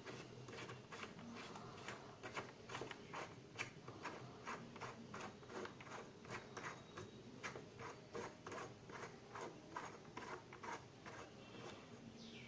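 Plastic nut being screwed by hand onto the threaded float-valve inlet of a plastic toilet cistern. It gives a faint run of quick clicks and plastic rubbing, about two or three a second.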